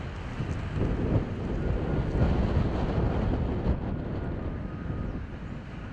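Wind buffeting the microphone outdoors: a low, gusty rumble that rises and falls.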